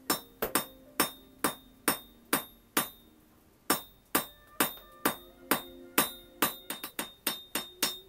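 Blacksmith's hammer striking iron on an anvil, sharp ringing blows about two a second. The blows pause briefly about three seconds in, then come quicker near the end.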